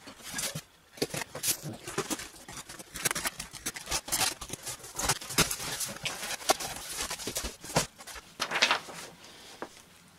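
Cardboard shipping box being opened by hand, its flaps pulled back amid crinkling plastic packing: a dense run of sharp crackles and rustles, with a longer rustle of paper near the end.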